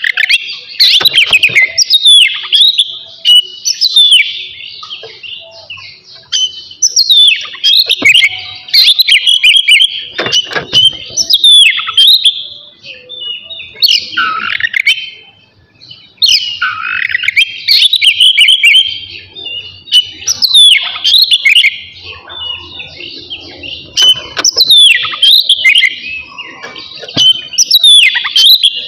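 Oriental magpie-robin (kacer) singing loudly: phrase after phrase of quick gliding whistles mixed with sharp clicking notes, broken by short pauses.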